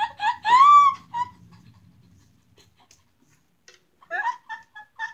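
Two women laughing hard: a high squealing laugh about half a second in, tailing off to a lull, then a few short bursts of giggling near the end.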